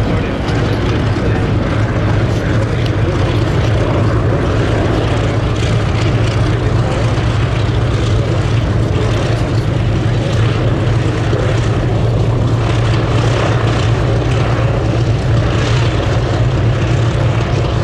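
Hawker Sea Furys flying overhead in formation, their Bristol Centaurus radial engines giving a steady, loud low drone.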